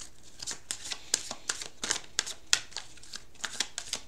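A deck of Ascended Masters oracle cards being shuffled by hand: quick, irregular papery snaps and flicks, about three or four a second.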